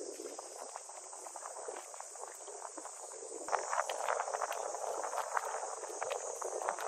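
Steady high-pitched insect drone, with scattered light ticks and taps that get busier and louder about halfway through.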